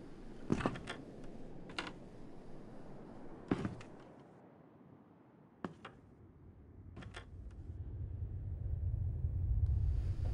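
A few sharp, irregularly spaced knocks and clicks, then a low rumble that swells from about seven seconds in.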